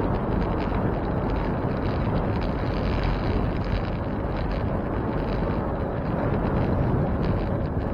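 Wind rushing over the microphone during a bike ride: a steady, low rumbling noise with no distinct events.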